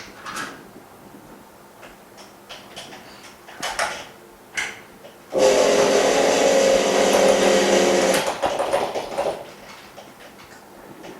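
Small clicks and handling knocks, then the motor of a polarizer film laminating machine starts and runs with a steady hum for about three seconds before winding down.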